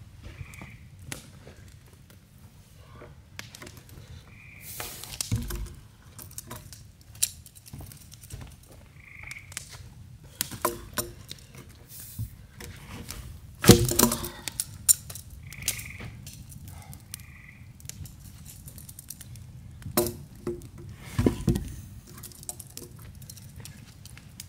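Wood fire crackling under a peeled log post laid across a cinder-block fire pit to char it, with a few heavy knocks as the post is gripped and turned with log tongs, the loudest about halfway through. A short call repeats every few seconds in the background.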